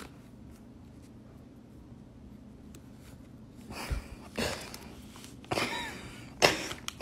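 A crinkly chip bag rustling in irregular bursts as a cat pushes its head into it and noses around inside, starting about halfway through after a quiet stretch.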